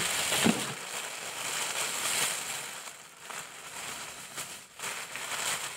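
Clear plastic shrink-wrap film crinkling and rustling as it is handled, the rustle swelling and fading unevenly.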